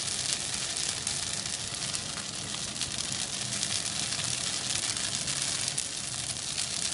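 Glass noodles and scrambled egg sizzling steadily in a hot oiled pan.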